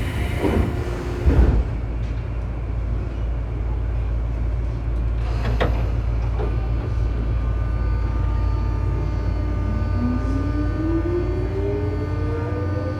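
Tobu 9000 series train car with armature chopper control, heard from above its chopper, pulling away from a station. A steady hum and tones run throughout. About nine seconds in, a whine starts rising in pitch as the train picks up speed. This car's chopper is known for making an abnormal noise.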